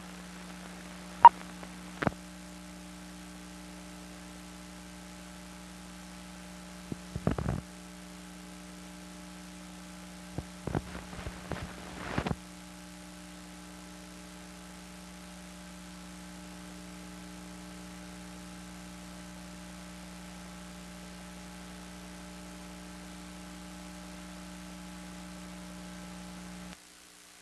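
Steady electrical hum. A sharp click comes about a second in and another at two seconds, then short bursts of crackling around seven and eleven seconds. The hum cuts off abruptly near the end.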